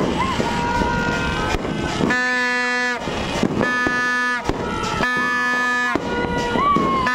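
A horn honks three long steady blasts of about a second each, a couple of seconds in, over dense crackling and popping from New Year's fireworks.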